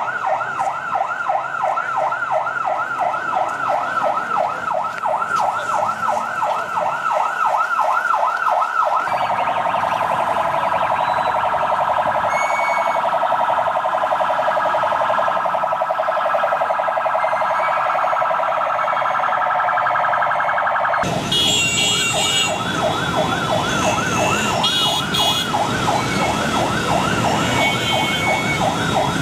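Escort vehicle siren sounding in quick up-and-down sweeps, about three a second. About nine seconds in it switches to a much faster warble, and about twenty-one seconds in it goes back to the sweeping tone, now over louder background noise.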